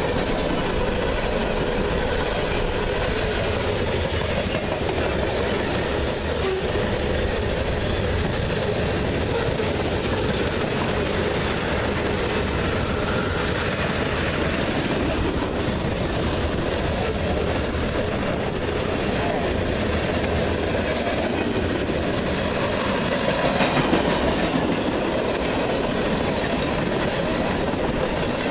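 Freight cars of a long CSX train rolling past at speed: steady rolling noise of steel wheels on rail.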